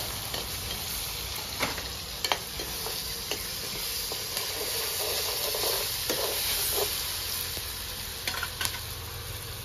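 Onions, ginger and garlic sizzling in hot oil in an iron wok, stirred with a metal ladle that scrapes and knocks against the pan several times.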